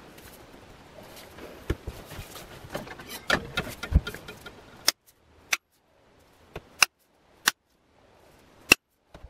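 Small sledge hammer striking to seat a restored axe head onto a new wooden handle. Handling and rustling first, then a low thump, then about six sharp knocks roughly a second apart.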